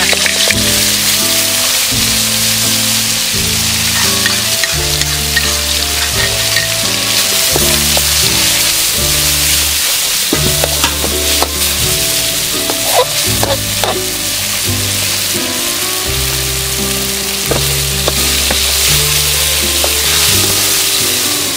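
Food sizzling as it fries in a wok, with a utensil stirring and scraping now and then, under background music with sustained low notes.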